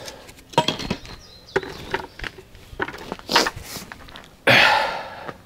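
Knocks and scuffs of masonry work on a concrete slab: footsteps and a bucket of mortar being carried and set down among concrete blocks, with a louder rough noise lasting most of a second near the end.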